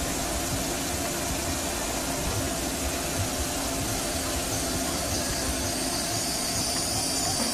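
CNC lathe running a cut behind its closed door: a steady machine hum with coolant spraying inside the enclosure. A high whine joins about two-thirds of the way through.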